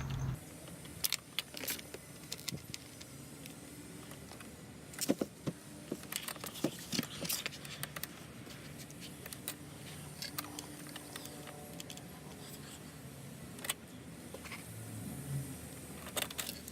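Scattered sharp metallic clicks and clinks of hand tools, screws and a steel seat bracket being handled while a car's power seat motors and bracket are fastened back on.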